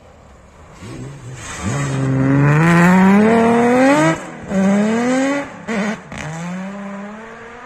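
BMW 3 Series rally car accelerating hard past the listener. Its engine revs climb, break off briefly at three upshifts and climb again. It is loudest about three seconds in, then fades as the car pulls away.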